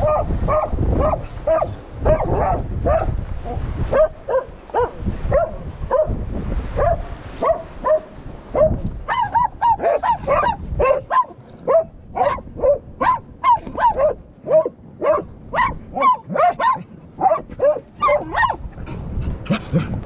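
Hunting dog barking without pause at a mink hidden under a boulder, marking the quarry it has found: about two short barks a second, quickening to about three a second from about nine seconds in.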